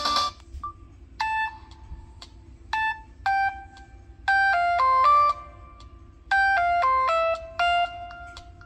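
Preloaded ringtone of a Samsung SGH-T249 phone playing through its speaker. It is a simple electronic melody: two short note figures, then a phrase of stepping notes played twice. A busier ringtone cuts off just at the start.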